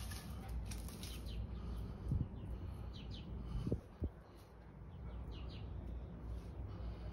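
Small birds chirping in the background: short, high, downward-sliding chirps, often in pairs, repeated every second or two. Under them is a low steady rumble, and a few soft knocks come about two and four seconds in.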